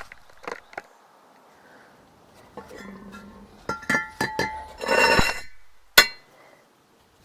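Metal clinks and knocks as a new brake rotor is fitted back onto the rear hub, several of them ringing briefly, with a short scrape of metal on metal about five seconds in and one sharp knock just after.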